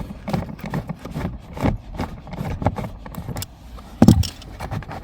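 Hand work on a car's plastic footwell trim cover under the dashboard: irregular clicks, knocks and scrapes as its Torx screws are undone and the cover is worked loose, with one louder knock about four seconds in.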